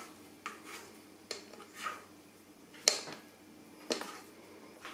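Light knocks and clicks of a mixing bowl and utensil, a handful of them about a second apart, as thick ground-hazelnut meringue mixture is scraped out of the bowl.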